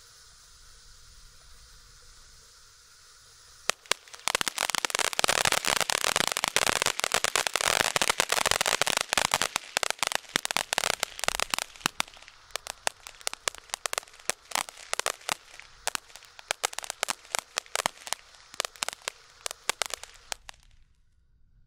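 Ground firework fountain burning: a steady hiss of sparks, then about four seconds in a dense crackling of many sharp pops begins. The crackling thins out after about twelve seconds and the fountain stops shortly before the end.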